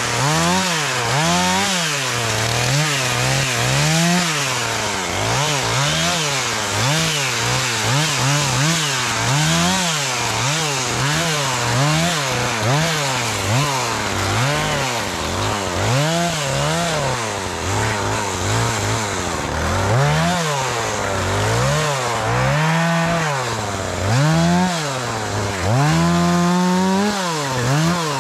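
Chainsaw running while cutting wood, its engine revving up and dropping back over and over, about once a second. Near the end it holds high for about a second.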